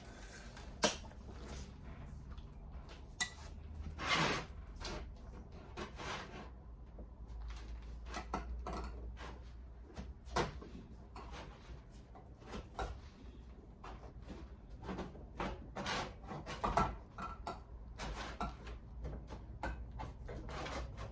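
Tin snips cutting sheet steel for a replacement panel: irregular crunching snips and clicks, with two sharper metal knocks in the first few seconds.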